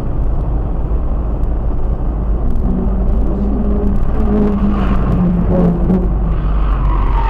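Steady low engine and road rumble of a moving vehicle, heard from inside its cab through a dashcam, with a pitched engine note wavering up and down in the middle.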